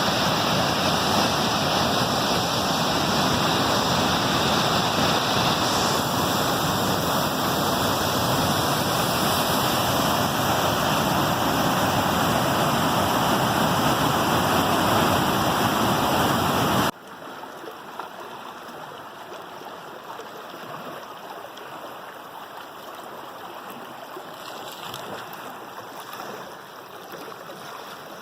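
Rushing stream running high with rain and runoff, a loud steady roar of water that cuts off abruptly about two-thirds of the way in to a quieter flow of water.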